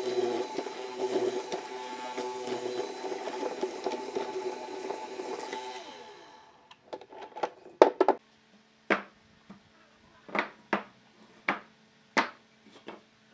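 Bench-top hollow-chisel mortising machine running as its chisel cuts a mortise into a wooden block, its motor winding down about six seconds in. Then about ten sharp wooden knocks as cut blocks are set down on a wooden workbench, over a low steady hum.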